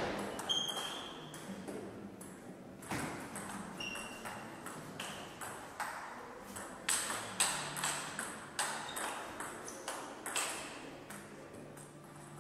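Table tennis rally: the ball clicking sharply off the bats and the table, a quick run of hits about two to three a second through most of the stretch.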